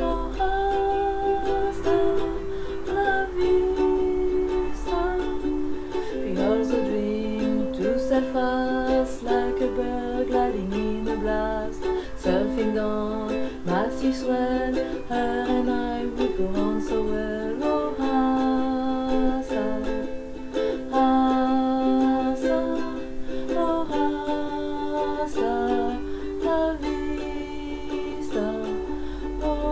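A ukulele played continuously, a song of strummed and plucked chords, with a woman's voice singing the melody along with it.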